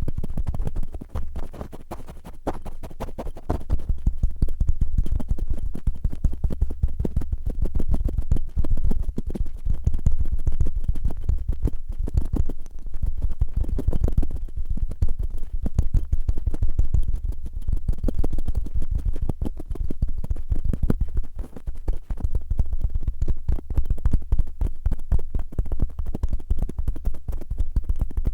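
Cotton swabs rubbed and scratched roughly on an ear-style ASMR microphone: a dense run of fast scraping strokes with a deep rumble from the contact, a little softer about a second in before picking up again.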